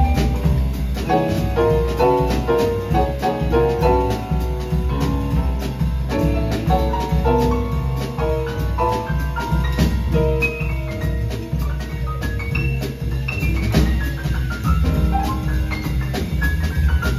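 Live small jazz combo playing: drum kit and upright bass keeping time under a busy melodic solo line, with fast descending runs of notes near the end.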